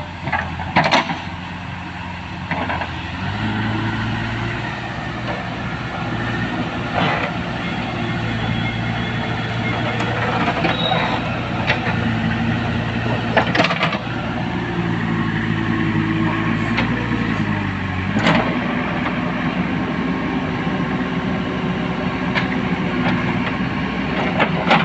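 JCB 3DX backhoe loader's diesel engine running under hydraulic load, revving up a few seconds in and easing back down about two-thirds of the way through. A few sharp metallic knocks sound over it.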